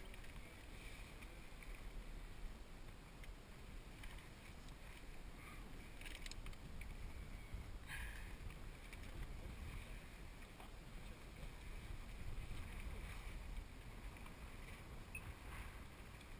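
Steady low wind and sea noise on the microphone aboard a sailboat, with a few faint clicks and rustles of scuba gear being handled, about six and eight seconds in.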